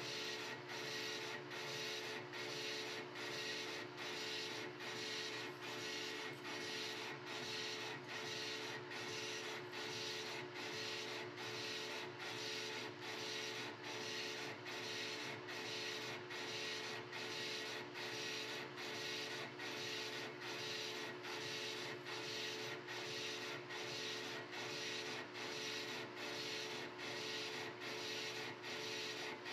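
A small metal lathe taking a facing cut on a large 316 stainless steel part with a CNMG 432 carbide insert: a steady cutting hiss over the hum of the machine's drive. It pulses evenly a little more than once a second.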